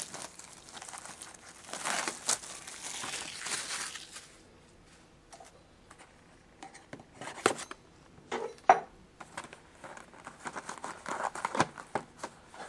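Packaging of a trading-card box being torn open and handled: crinkling and tearing, a quieter stretch in the middle, then sharp crackles and clicks.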